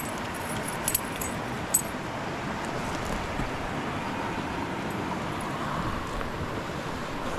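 Steady rushing outdoor noise, with a few small metallic clinks in the first two seconds.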